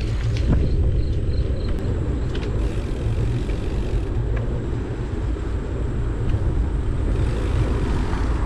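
Wind buffeting the microphone while moving at speed along a paved path: a steady, dense low rumble.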